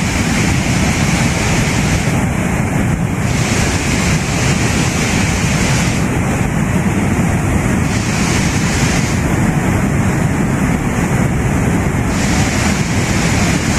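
Steady, loud rushing of a muddy flash-flood torrent.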